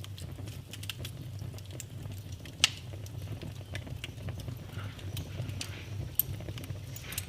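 Wood fire burning in a fireplace: a steady low rumble under scattered small crackles, with two sharp pops, the louder one about two and a half seconds in and another about six seconds in.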